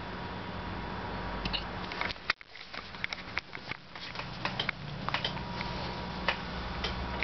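A puppy hiccuping: short, soft clicks at irregular intervals over a steady low hum.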